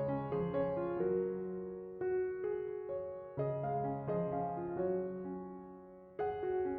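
Background piano music: gentle chords and a slow melody, each phrase fading before the next is struck.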